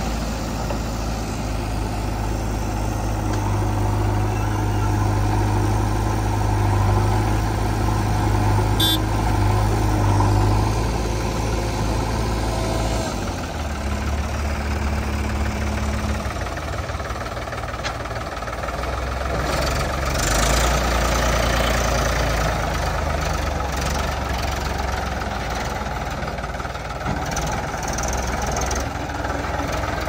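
Diesel engines of a JCB 3DX backhoe loader and a Mahindra 295 DI Turbo tractor running steadily. Partway through, the engine note changes as the tractor pulls away with its trailer loaded with soil, with a louder stretch of engine noise near two-thirds of the way in.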